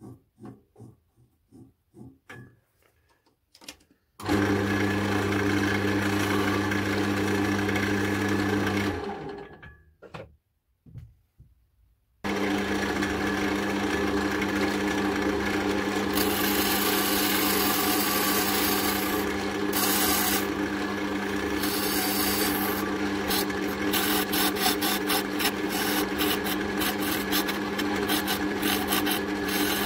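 Wood lathe motor starts about four seconds in, runs with a steady hum and winds down after about five seconds. It starts again about twelve seconds in, and a turning chisel then cuts the spinning oak handle blank, a loud scraping hiss that turns choppy toward the end.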